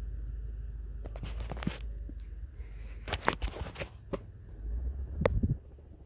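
Hampton Bay Redington IV 52-inch ceiling fan running with a low steady rumble, which eases off near the end. Over it come scattered clicks and rustling of the phone being handled, loudest around three seconds in, and one sharp click a little after five seconds.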